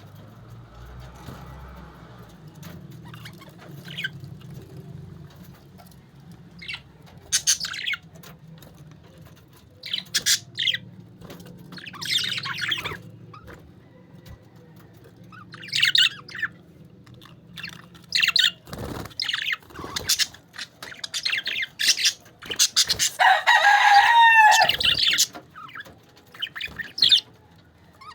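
A flock of parakeets chirping and chattering in short, scattered bursts, with a longer, louder call about four-fifths of the way through.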